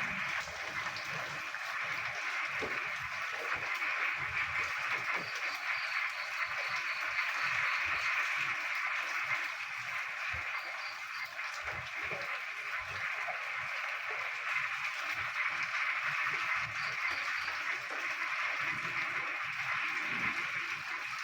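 A dense chorus of many frogs croaking at once in the rain, a continuous crackling mass of calls, with short runs of a higher, rapidly pulsed call coming in several times over it.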